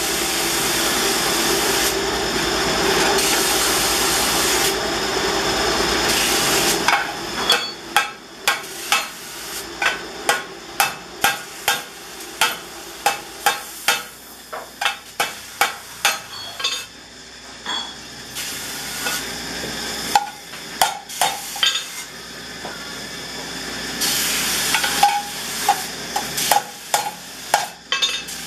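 Hammer blows on sheet steel as a timbal cowbell body is bent and shaped on a steel bench: sharp metallic strikes at about two a second in runs, with a steady hiss over the first several seconds.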